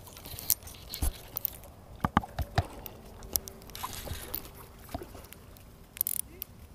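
Scattered sharp clicks and taps of hands working a fly rod, reel and line while fighting a hooked peacock bass.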